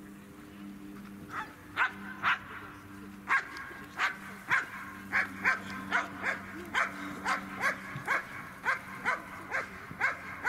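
A dog barking repeatedly in an even series of sharp barks, about two a second, beginning about a second and a half in.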